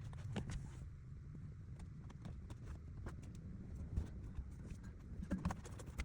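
Scattered clicks and light knocks of hands working on car interior carpet and trim, over a low steady rumble, with a couple of sharper knocks near the end.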